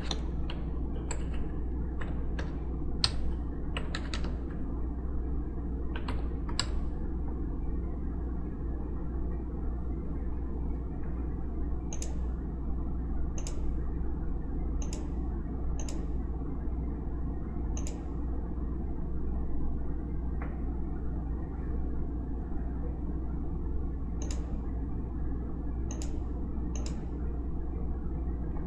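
Scattered, irregular sharp clicks from operating a computer's mouse and keyboard, over a steady low hum.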